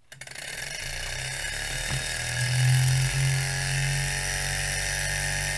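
Small hot-air Stirling engine started by its belt-coupled DC motor run in reverse as an electric starter. It whirs up to speed, rising in pitch over the first second or two, then runs steady, fast and very loud with no load on it.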